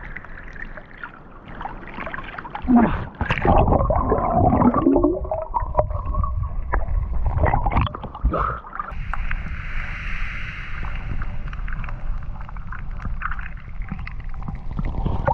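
Water sloshing and gurgling against an action camera held in and just under the sea, with a steady low rumble and many small knocks and bubbles. A few short warbling tones come about four to five seconds in, and a stretch of hiss about nine seconds in.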